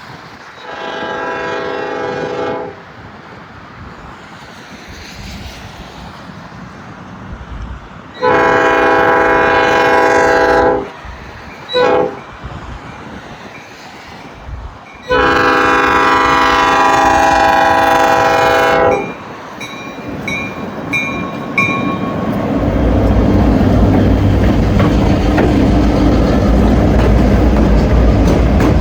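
Diesel freight locomotive air horn sounding the grade-crossing signal: long, long, short, long, the last blast held about four seconds. A bell dings briefly after it, then the locomotives' engines run loudly past, with wheels clacking over jointed rail.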